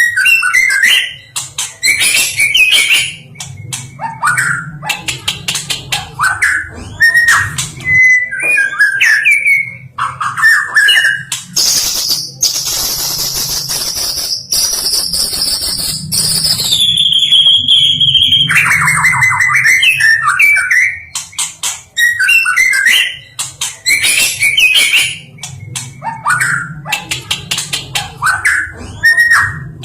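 White-rumped shama singing a long, varied song: quick runs of clicks and chatter between whistled phrases. About twelve seconds in it holds a long, high whistle that steps down in pitch.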